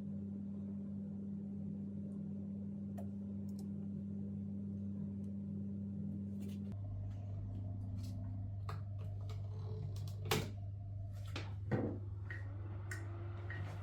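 3D printer humming steadily, its pitch dropping about seven seconds in, with a few sharp clicks near the end.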